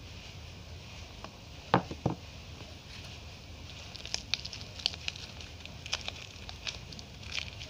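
A couple of knocks about two seconds in, then the crinkly wrapper of a Savlon soap bar being peeled open by hand, with many small crackles from about halfway through.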